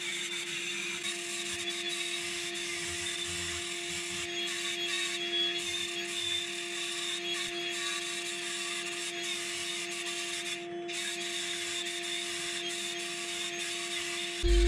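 Handheld angle grinder running steadily, its sanding disc grinding into plywood with an even hum and rasp. The rasp varies a little as the disc is worked across the surface.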